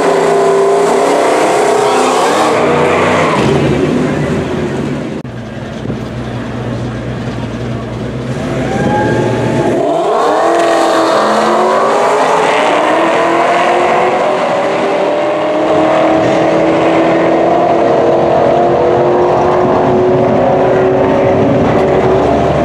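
Two drag cars, a 2011 Shelby GT500 with its supercharged V8 and a Fox Body Mustang, revving at the start line, then launching hard about ten seconds in. Their engine notes climb steadily as they pull away down the quarter mile.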